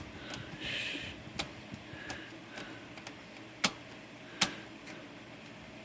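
Sharp metal clicks and taps from hand work on a Royal Quiet De Luxe typewriter's margin mechanism, with a brief scrape about a second in. The clicks are spaced irregularly, and three stand out.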